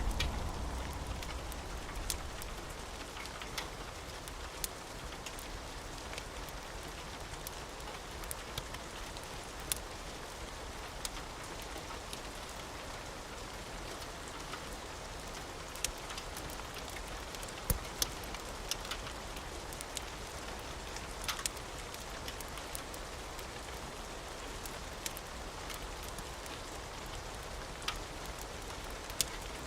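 Steady rain with scattered sharp crackles and pops from a wood fire. A thunder rumble dies away over the first couple of seconds.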